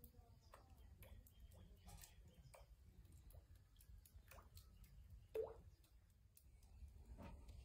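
Near silence: a faint low rumble with scattered soft clicks and ticks, and one brief louder blip about five seconds in.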